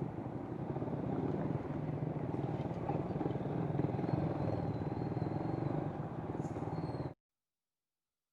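Suzuki Raider 150 Fi's single-cylinder four-stroke engine running steadily through an aftermarket Apipo exhaust pipe, then cutting off suddenly about seven seconds in.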